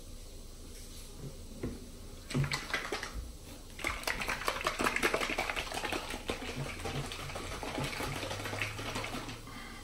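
Hair dye and developer sloshing in a plastic applicator bottle as it is shaken to mix: a fast, rattly swishing from about four seconds in, with a few short rustles before it.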